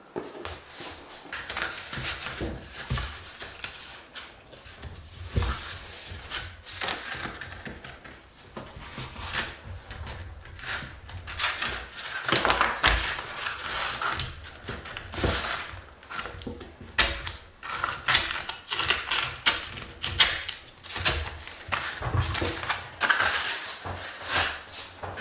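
Irregular knocks, clicks and scraping from work on a wooden table.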